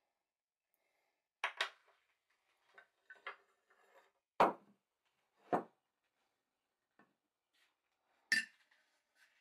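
The iron, wedge and body of an old wooden shoulder plane being handled and set down on a wooden workbench: a handful of sharp knocks and clicks of metal and wood, with a double click about a second and a half in and a sharp metallic clack near the end.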